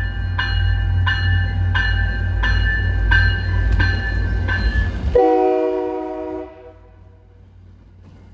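A locomotive's multi-chime air horn played in a rapid string of short blasts, about three every two seconds, over the heavy rumble of a passing train. About five seconds in the rumble drops away suddenly and a last, lower-pitched horn chord fades out.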